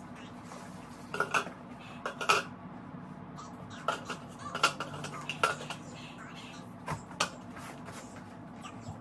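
Hard plastic baby toys knocking and clattering as they are picked up and the rings of a stacking-ring toy are dropped onto its post: a string of separate sharp knocks, about nine, over a steady low hum.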